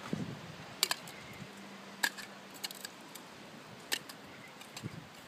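About half a dozen sharp clicks and clinks of a glass bottle and a metal shaker tin knocking together and against the hands as they are flipped and caught in flair bartending.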